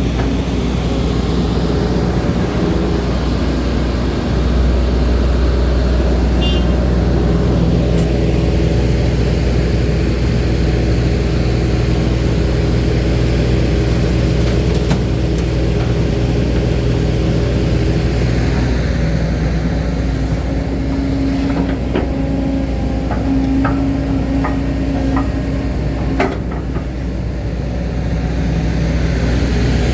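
Excavator's diesel engine and hydraulic pump running steadily, the engine note shifting a few times, with a handful of short knocks and clanks about three-quarters of the way through. The engine and pump sound normal, judged okay by the operator.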